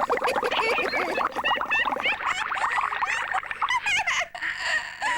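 A comic funny noise: a fast fluttering rattle mixed with squeaky chirps that wobble up and down in pitch, fading out about four seconds in.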